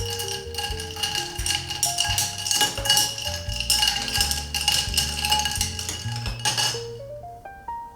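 Background music under a fast run of many quick kitchen knocks and clatter with a steady ringing tone, which stops about seven seconds in.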